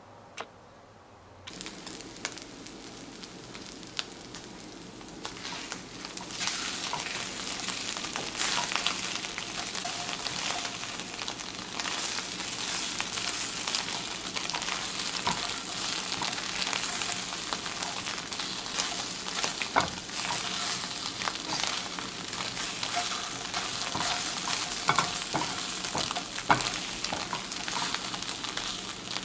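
Food sizzling and crackling as it fries in hot oil. It starts about a second and a half in, grows louder around six seconds, then holds steady with scattered pops.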